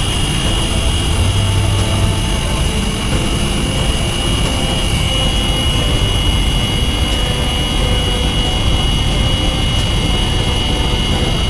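A machine running steadily and loudly, with a constant high whine over a noisy hum.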